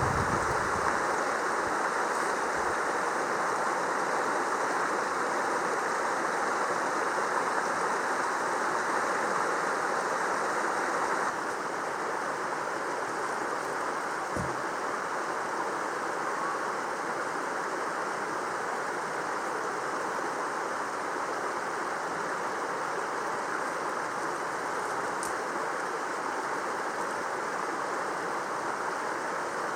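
Mountain stream running steadily, its rushing a little quieter from about a third of the way in, with one brief low thud midway.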